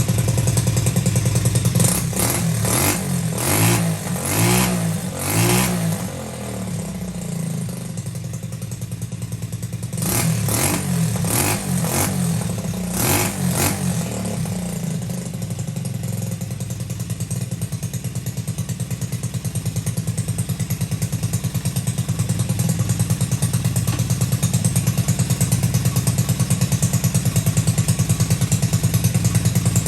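Lifan 125 single-cylinder four-stroke engine in a Honda SL70 minibike, freshly started and running: it is blipped in short revs twice, around two to six seconds in and again around ten to fourteen seconds, and idles steadily between and after.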